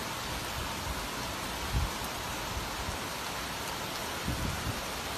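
Heavy rain pouring down in a steady, dense hiss, with a few brief low thumps about two seconds in and again near the end.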